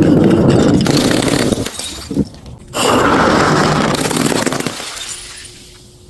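Glass bottles smashing, two crashes: one at the start and another about three seconds in, each a dense crunch and clatter of breaking glass lasting a second or two before it fades out.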